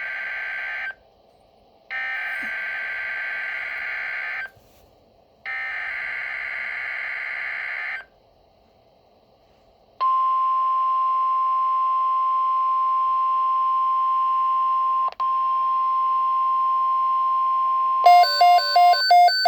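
Emergency Alert System activation on NOAA Weather Radio. First come SAME header data bursts, a harsh buzzing warble that sounds three times with short gaps. Then a steady 1050 Hz warning alarm tone holds for about nine seconds with a brief dropout midway, and near the end a fast run of electronic beeps starts over it.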